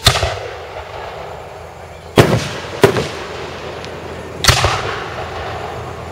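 Aerial firework shells bursting: four loud booms, one right at the start, two close together about two and three seconds in, and another about four and a half seconds in, each trailing a short echo.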